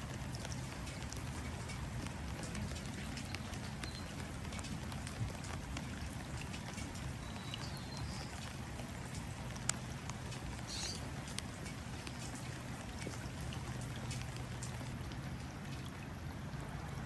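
Steady outdoor rain pattering into water, with scattered individual drop ticks over a low rumble. A few brief bird chirps sound through it, the clearest about eleven seconds in.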